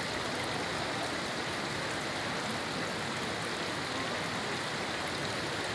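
Steady, even rush of water over a muddy landslide debris field, with no distinct events.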